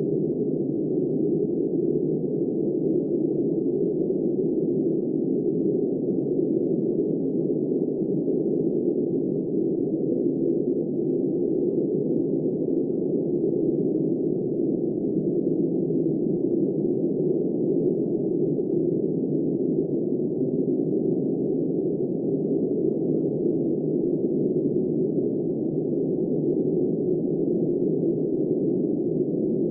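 Steady, muffled wind-like noise, low and dull, with nothing above the low range and no gusts or changes in level.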